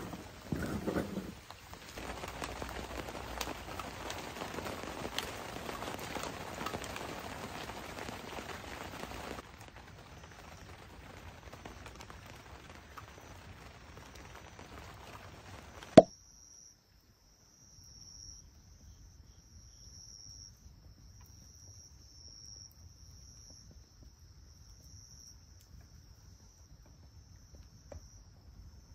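Crickets chirping in an evenly pulsing high trill, heard clearly after a sharp click about halfway through. Before that, a louder noisy pattering covers them.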